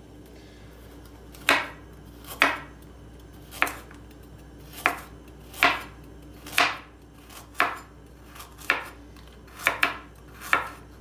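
Kitchen knife slicing a carrot into rounds on a wooden cutting board, each cut ending in a knock on the board. About eleven separate cuts, roughly one a second, unevenly spaced.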